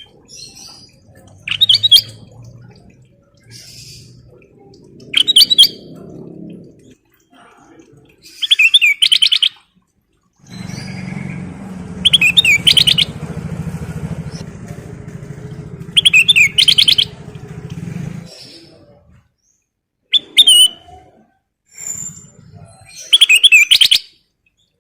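Kutilang emas songbird singing: short bursts of loud chirping phrases, one every three or four seconds. A low rumble runs under the song from about ten to eighteen seconds in.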